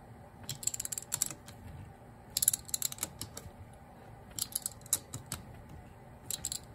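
Ratchet clicking in four short bursts of rapid clicks as the screws of a carburetor float bowl are tightened a little at a time.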